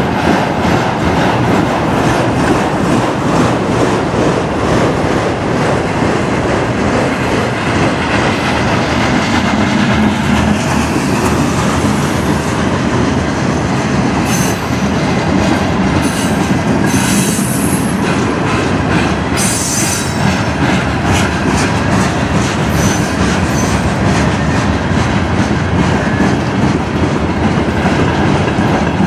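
Freight cars of a mixed manifest train rolling past close by: a steady, loud sound of steel wheels on rail with clickety-clack over the joints. Short high-pitched wheel squeals come in a few times around the middle.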